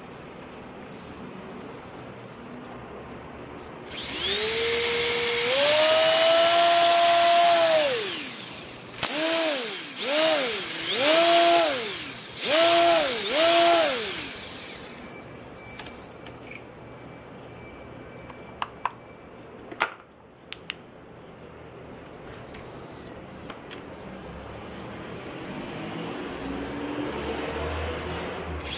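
V120D02 micro RC helicopter's electric motor and tail drive train spinning up to a high whine, held for about four seconds and then wound down. Five quick throttle blips follow, each a short rising and falling whine. A few light clicks come later.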